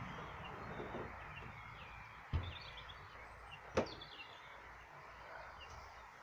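Steady outdoor background hiss with a few faint, high bird chirps. Two sharp clicks stand out, one a little over two seconds in and one just under four seconds in.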